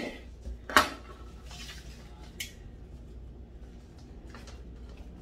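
Kitchenware clattering: two sharp knocks a little under a second apart, then a single light click about two seconds in, over a low steady hum.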